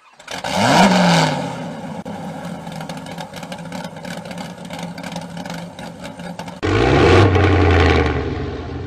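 Sports car engine revved sharply about half a second in, then dropping back to a rough idle. Near the end, after an abrupt cut, another engine blips up briefly and settles.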